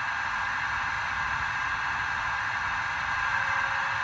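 Small electric motor of a Roco EDK 750 model railway crane whirring steadily as its jib is raised.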